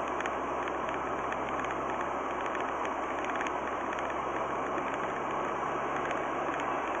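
Car cruising at about 60 km/h, heard from inside the cabin: steady tyre and road noise with a faint low engine hum.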